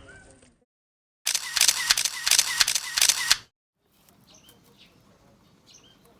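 A rapid run of sharp clicks, about four or five a second, starting a little over a second in and stopping abruptly after about two seconds.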